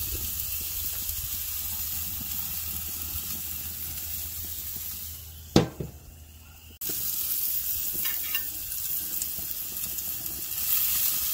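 Steak sizzling on the grates of a Weber gas grill, a steady frying hiss. A single sharp knock comes about five and a half seconds in, followed by a brief quieter stretch before the sizzle returns.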